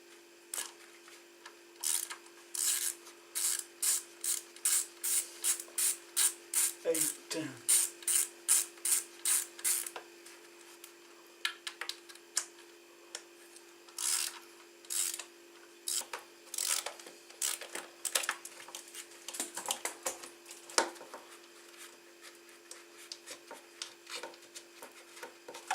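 Socket ratchet wrench being worked on the motorcycle's front fender bolts: a run of short rasping ratchet strokes, about two a second, for several seconds, then a few more scattered strokes. A steady low hum sits underneath.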